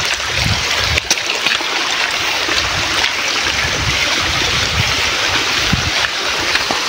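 Steady rushing of flowing water, like a mountain stream in spate, with a few dull low bumps underneath.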